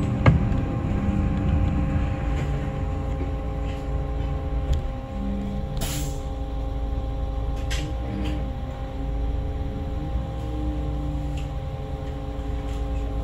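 City bus running, heard inside the cabin: a steady low engine rumble with a constant electrical hum, as the bus slows and waits at a junction. About six seconds in comes a short, sharp hiss of compressed air from the bus's air brakes.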